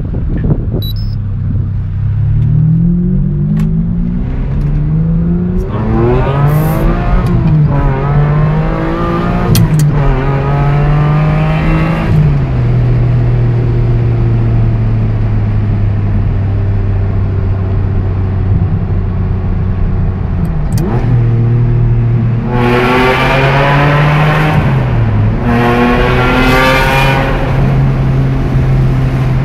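Ferrari 550 Maranello's 5.5-litre V12 through a Tubi-style exhaust with an X-pipe, echoing in a tunnel, pulling in 4th gear under throttle. The revs climb over several seconds, fall back as the throttle eases, then hold steady at a cruise. From about 22 seconds in the throttle is opened again and the revs rise in repeated pulls with short drops between.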